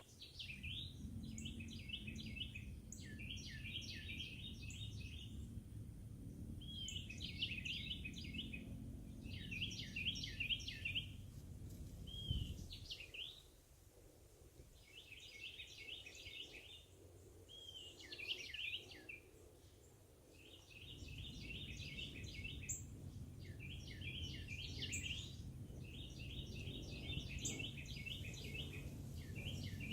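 A songbird singing: a short phrase of quick high notes, repeated every second or two, over a low rumble that fades for a stretch in the middle.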